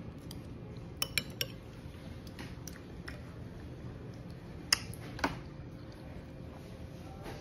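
Metal spoon clinking against a ceramic dish: three quick clinks about a second in, then two louder ones a little before and after five seconds.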